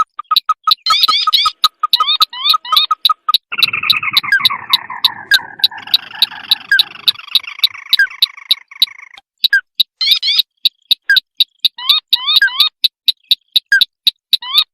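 Bird-trapping lure recording of rail and crake calls, sintar and red-eyed crake, played on a loop: a fast, even train of sharp clicking pulses about four a second, overlaid with repeated upward-sweeping chirps. From about three and a half seconds to nine seconds a longer, lower call slides downward, and it stops briefly just after nine seconds.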